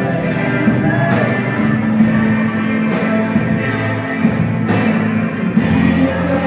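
Loud rock music, a drum kit keeping a steady beat of about three hits a second under guitar and singing, the drums loud enough to shake the recording.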